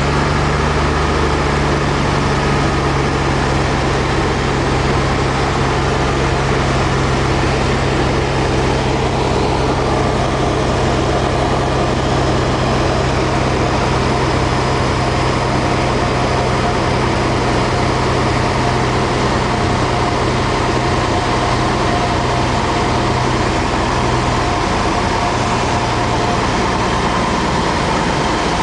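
Cessna 170A's six-cylinder Continental engine and propeller running steadily, heard inside the cabin with wind noise, on final approach to landing. The low engine hum weakens slightly in the last few seconds.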